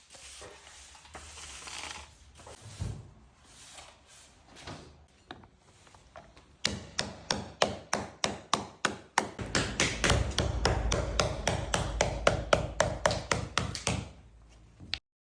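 PVC garage floor tiles being knocked together into place: a quick run of sharp knocks, about four or five a second, starting about seven seconds in and stopping just before the end, with a low rumble under them in the second half. Before the knocking there is only faint noise.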